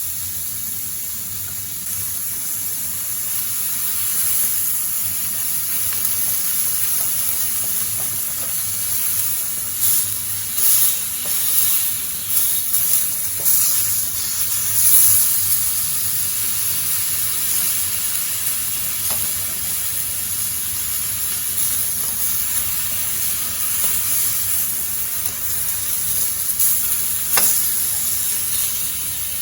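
Alcohol stove burning, a steady sizzling hiss that swells unevenly for a few seconds midway, with one sharp tick near the end.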